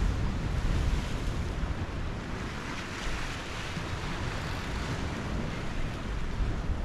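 Wind buffeting the microphone in gusts, over the steady wash of small waves breaking on the rocks below.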